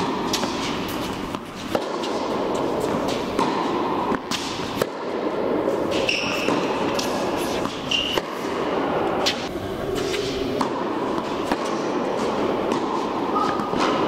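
Tennis rally on an indoor court: sharp racket strikes and ball bounces at irregular intervals, echoing in the large hall, with a couple of short shoe squeaks about six and eight seconds in.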